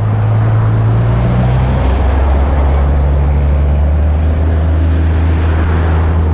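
An engine running with a steady low drone that drops lower about two seconds in, over a broad rushing noise.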